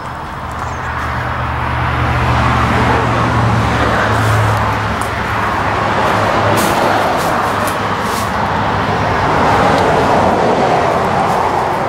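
Road traffic noise: a steady rushing drone of passing motor vehicles, with a low engine hum in the first few seconds.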